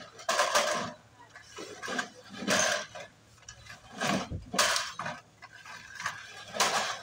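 Glass soft-drink bottles clinking and rattling in plastic crates as the full crates are lifted and set down on a stack, in several loud bursts a second or two apart.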